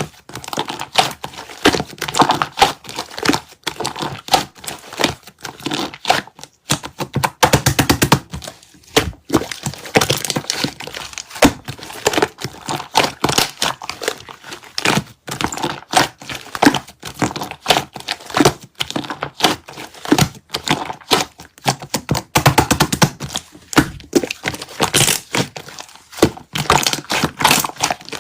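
Slime being squished and poked by hand: a dense, irregular run of clicks, crackles and pops.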